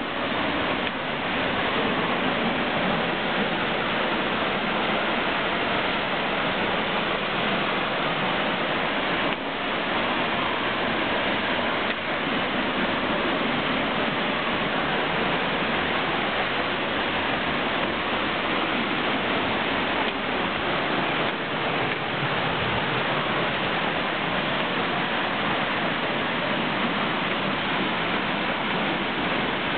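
Tunnel Falls, a tall waterfall, making a steady, unbroken rush of falling water.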